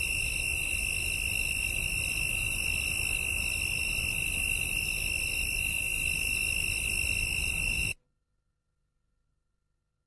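Steady high-pitched electronic alarm-like tone over hiss, cutting off suddenly about eight seconds in.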